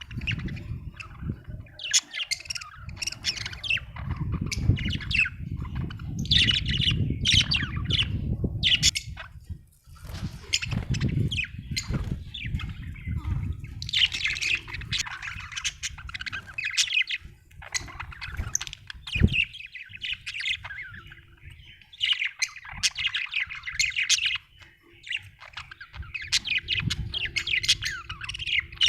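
Budgerigars chirping and chattering in a dense, busy stream of short calls, over a low rumble that is heaviest in the first ten seconds.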